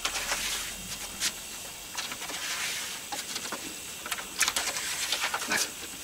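Scissors cutting through thin plastic sheeting, with the plastic rustling and crinkling between short sharp snips.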